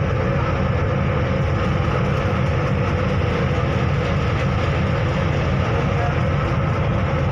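River ferry's engine running with a steady low rumble.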